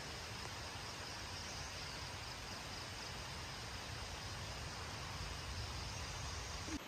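Tropical rainforest ambience: insects droning steadily over an even, faint hiss.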